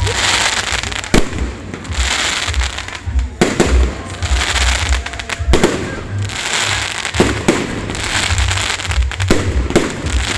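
Fireworks display: aerial shells bursting with sharp bangs every second or two, over continuous crackling and a low rumble.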